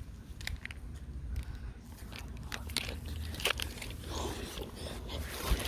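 Irregular crunches and clicks of bare feet stepping over dry leaves on a sidewalk, mixed with handling noise from the phone; a rustling thickens about four seconds in.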